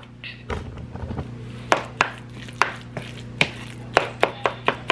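Black plastic spoon tapping and scraping against a ceramic plate while mashing and stirring salmon croquette mixture: sharp, irregular taps that come faster near the end, over a steady low hum.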